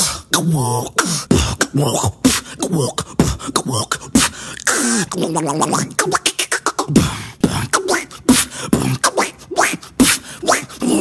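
A beatboxer making vocal sound effects with the mouth: quick clicks and pops mixed with voiced tones that swoop up and down in pitch, changing in rapid succession.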